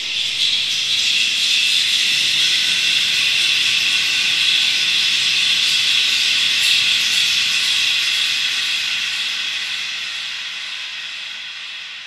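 A horror sound effect: a loud, steady, high-pitched hiss with faint ringing tones inside it, easing off gradually near the end.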